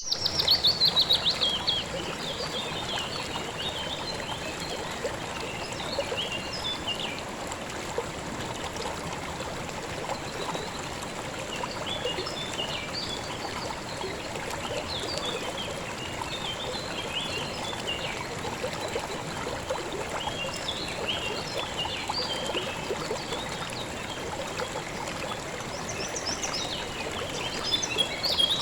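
River water flowing steadily, with small birds chirping and singing over it. A louder run of bird notes comes at the start and another comes near the end.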